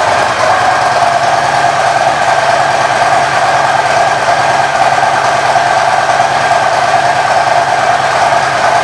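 2024 Harley-Davidson Low Rider ST's Milwaukee-Eight 117 V-twin idling steadily through an aftermarket exhaust, with an even pulse.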